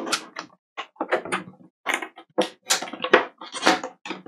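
Packaging of a trading-card box being torn open and handled: a run of short, irregular crinkles and rips of wrap and cardboard.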